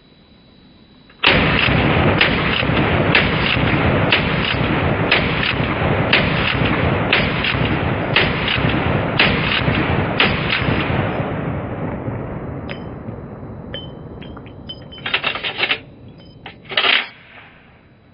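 Century Arms C39 micro AK pistol in 7.62x39 firing about ten semi-automatic shots, roughly one a second. The reports blur into a continuous wash that dies away slowly after the last shot. A couple of short clacks follow near the end.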